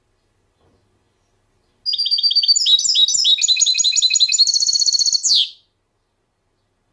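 A small songbird singing one phrase of rapid, repeated high notes, switching between several trilled series and ending in a fast, dense trill; it starts about two seconds in and stops abruptly under four seconds later.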